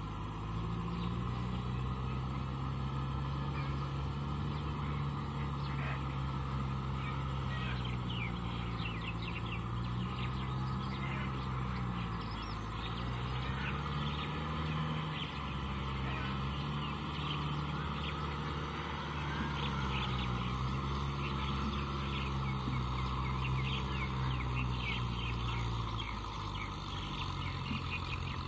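Kubota tractor's diesel engine running steadily under load as it works a rotavator through a flooded paddy field, its pitch slowly rising and falling. Many short high bird chirps sound over it through the middle of the stretch.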